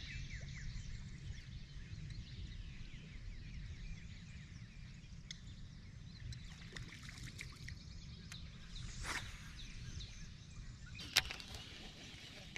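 Outdoor ambience: a steady low rumble like wind on the microphone, with faint birds chirping and a single sharp click about eleven seconds in.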